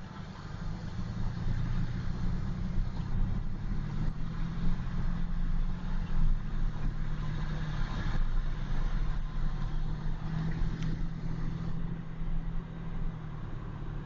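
Car engine and road noise while driving, rising over the first couple of seconds as the car picks up speed, then running steadily.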